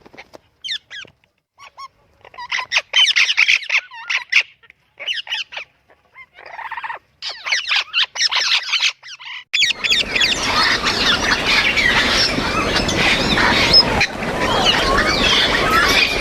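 Parrots calling: separate short whistles and squawks with gaps between them, then, about ten seconds in, a dense din of many parrots calling and chattering over one another.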